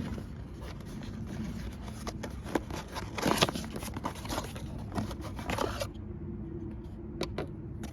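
Handling noises: scattered light clicks, scrapes and rustling as a new oil filter and its packaging are handled.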